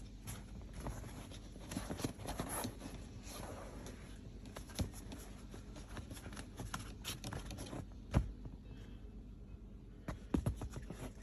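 Rustling and scattered clicks of a pleated cabin air filter being slid into its plastic case, with a few sharper knocks of plastic.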